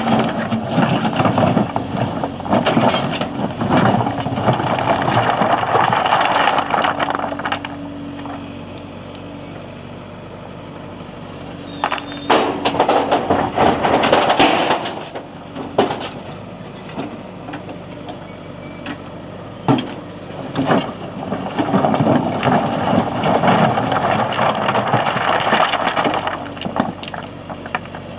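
JCB backhoe loader's diesel engine running while stone is loaded into a tipper truck: three long spells of rocks clattering and grinding against steel, full of sharp knocks, with the steady engine tone heard in the gaps between them.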